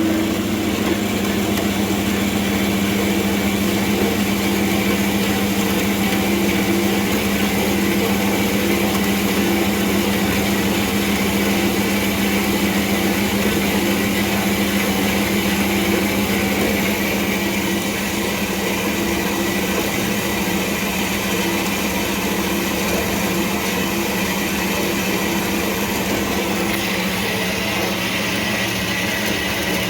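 Bandsaw running steadily, cutting off a piece of bar stock: a constant machine hum with a steady higher note above it.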